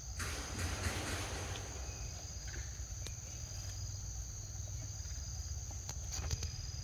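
Steady high-pitched drone of insects, with a burst of rustling near the start lasting about a second and a few sharp clicks about three seconds in and again near the end.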